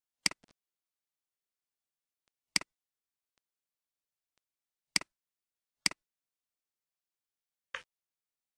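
Five sharp, single clicks a second or two apart from a computer mouse and keyboard being worked, with nothing heard between them.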